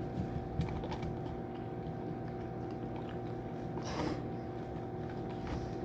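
A dog crunching and chewing a hard gingerbread dog cookie, with small irregular crunches and clicks over a steady background hum.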